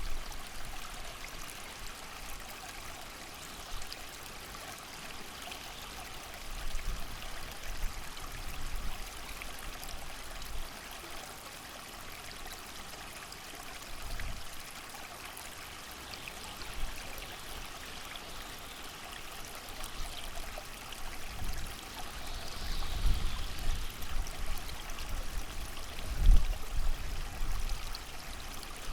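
A creek running steadily, its even rushing hiss unbroken, with low gusts of wind swelling and fading beneath it, heaviest in the second half.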